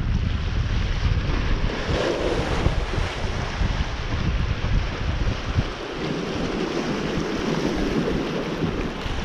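Wind buffeting the microphone over a steady rush of water. The low buffeting eases off for a few seconds about six seconds in.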